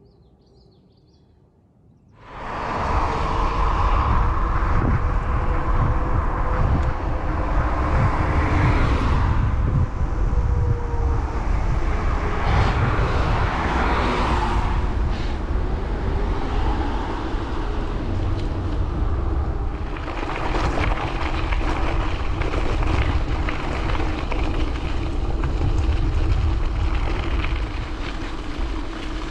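Gravel bike riding on a forest road: a loud, steady rush of wind on the microphone over the rumble of tyres on gravel, starting suddenly about two seconds in.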